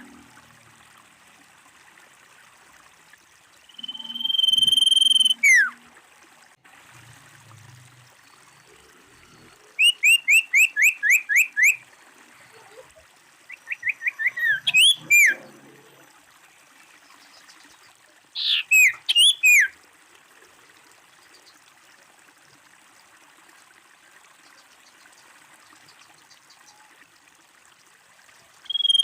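Common iora calling: a long steady whistle that drops sharply in pitch at its end, then rapid runs of short whistled notes, about five a second, and a few quick sliding notes. The last third holds only a faint steady background.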